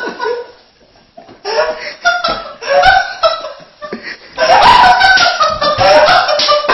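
Laughter in repeated bursts, starting about a second and a half in and loudest over the last two seconds.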